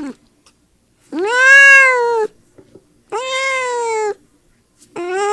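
A cat meowing: three drawn-out meows, each about a second long, rising slightly and then falling in pitch, with about a second of quiet between them; the last one begins near the end.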